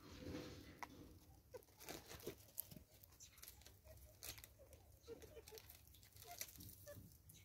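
Vervet monkey eating seed on a wooden stump: faint, scattered crunches, clicks and light rustles.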